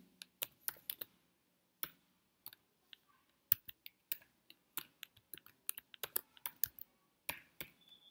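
Typing on a computer keyboard: faint, irregular single keystroke clicks, sparse at first and coming faster in the second half.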